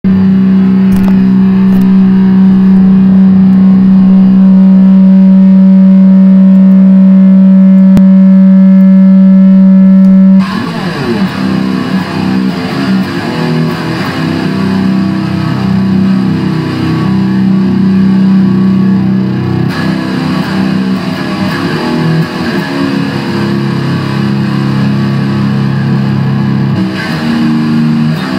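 Epiphone SG Special electric guitar played loud through a Line 6 Spider III amp with distortion. One note is held steady for about ten seconds, then it breaks into improvised riffs of shifting notes and chords.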